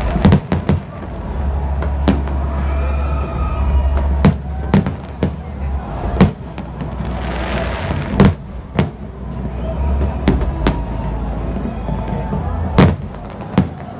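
Aerial fireworks shells bursting, a string of sharp bangs at irregular intervals, sometimes two or three in quick succession, over a low rumble.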